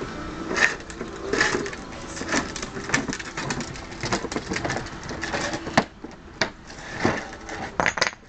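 Hard plastic wheels of a child's ride-on toy motorcycle rattling and clicking over brick pavers. Then come the knock and clatter of a small stack of bricks being knocked over by the toy.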